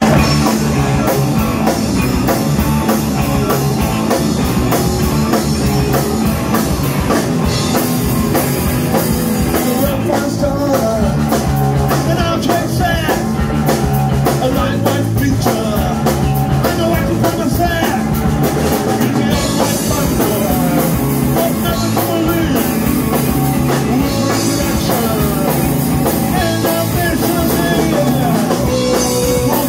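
A rock band playing live: electric guitars, bass guitar and a drum kit with a steady cymbal beat, and a man singing.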